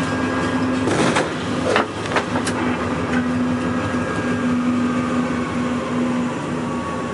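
Locomotive running along the track with a steady rumble and low hum, and a few sharp cracks and swishes about one to two and a half seconds in as tree branches strike the front of the locomotive.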